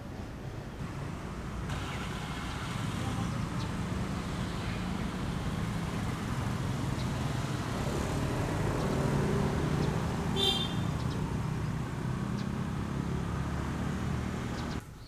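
Road traffic with a motor vehicle's engine running close by, growing louder toward the middle. A brief high-pitched squeak comes about ten seconds in, and the sound cuts off suddenly near the end.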